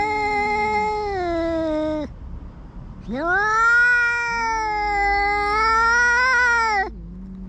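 Stray cats yowling in a territorial standoff: two long, drawn-out yowls, the first dropping in pitch and breaking off about two seconds in, the second rising at the start, held, and dropping away near the end. A lower second yowl overlaps them, the sound of two cats answering each other before a fight.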